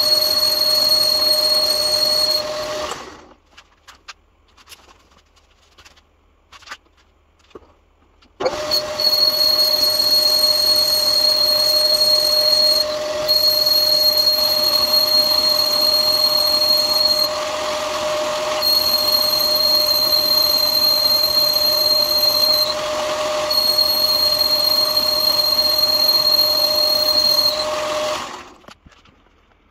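Old metal lathe running while a boring tool cuts inside a bronze bush, making a steady whine. It stops about two and a half seconds in, leaving a few seconds of near quiet with small clicks, then starts again abruptly and runs with a few brief dips until it dies away near the end.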